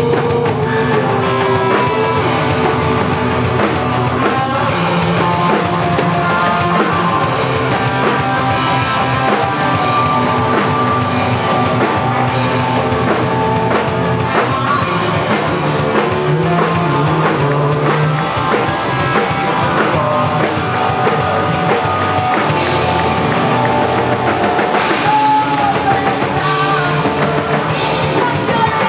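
Rock band playing live: a drum kit with guitar, the music dense and steady at full loudness.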